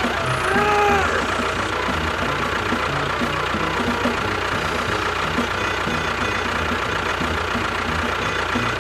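Steady engine-like running with an even, rhythmic low chugging, as of a miniature tractor at work, mixed with background music. About half a second in, a brief tone rises and falls.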